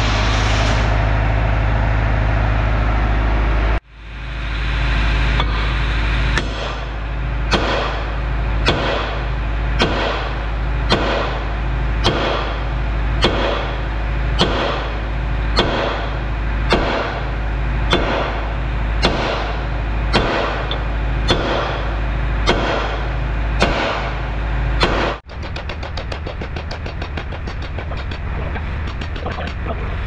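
An oxygen lancing rod burning into a stuck steel boom pin, a harsh steady hiss over a low hum. Then a run of sharp metal strikes, about one a second, as the pin is driven, over a steady low drone, followed near the end by a faster, dense ticking.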